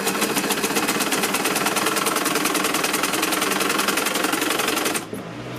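Sewing machine running at a steady speed, with a rapid, even stitching rhythm as it sews a lining seam, stopping suddenly about five seconds in.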